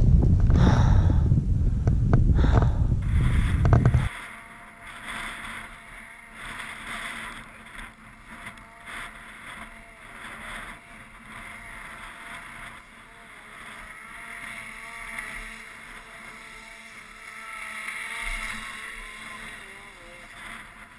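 Heavy wind buffeting on a helmet-camera microphone that cuts off abruptly about four seconds in, followed by a snowmobile engine idling quietly with a faint wavering whine.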